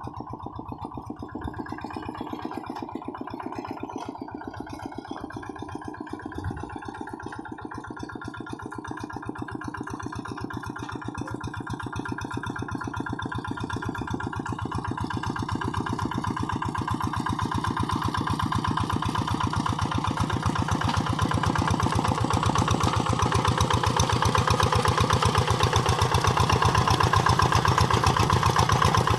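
Kubota single-cylinder diesel engine of a Quick G1000 hand tractor running with a fast, even firing beat, growing steadily louder through the second half. A single short knock comes about six seconds in.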